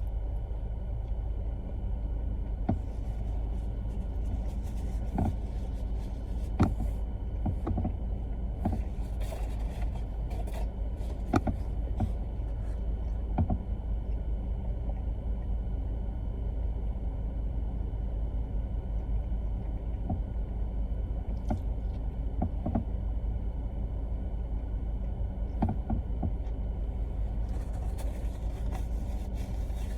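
Steady low rumble of a car running, heard from inside the cabin, with scattered faint small clicks.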